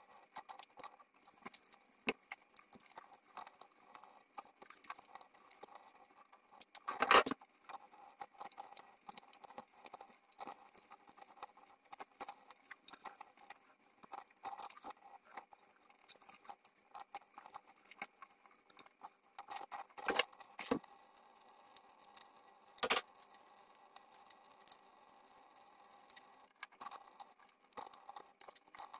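Tap water running into a stainless steel sink while a scouring pad scrubs the steel blades of a pair of scissors, with frequent small metallic clicks and clinks of the blades and a few louder knocks, the loudest about a quarter of the way in.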